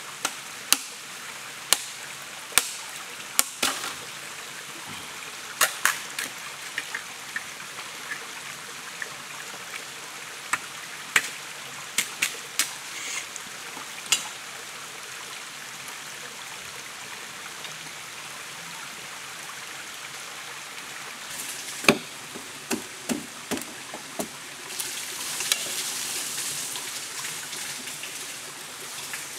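Machete blade striking bamboo: sharp, irregular chops, a dozen or so in the first half and a short run of them later, over the steady rush of a nearby stream. A louder hiss rises for a few seconds near the end.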